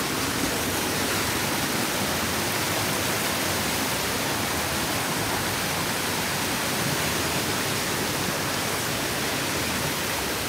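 Rushing mountain stream running over rocks and small cascades: a steady, loud rush of white water.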